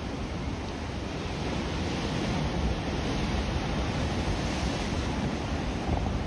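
Sea surf washing over rocks, a steady wash that swells a little in the middle, with wind rumbling on the microphone.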